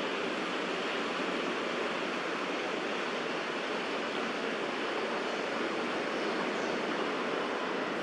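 Steady, even rush of distant city road traffic, with no distinct sounds standing out.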